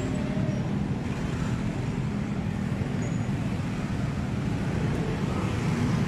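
Steady road traffic noise from a busy city avenue: engines running and vehicles passing, with a constant low hum.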